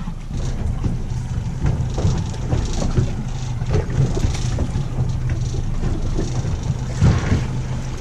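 Boat engine running steadily at low speed, a low hum under wind and water noise, with a few scattered knocks, the loudest about seven seconds in.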